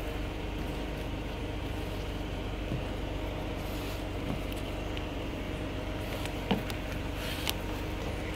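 Steady low hum of a running vehicle engine, with a few faint knocks from the nylon roof-rack straps being handled against the rack bar.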